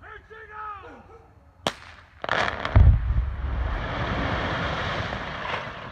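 Rock-blasting charges going off: a sharp crack, then a heavy boom about half a second later that carries on as a long rumble of breaking rock.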